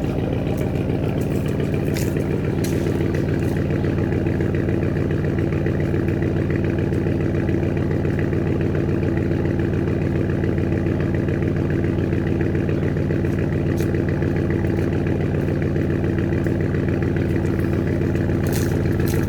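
Porsche GTS with the Porsche Sport Exhaust running at a steady idle just after starting: an even, low exhaust note with a few faint clicks over it.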